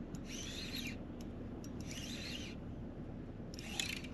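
Fishing reel cranked in short rasping bursts, three times about a second and a half apart, as a shaky-head bait is hopped and the slack reeled in.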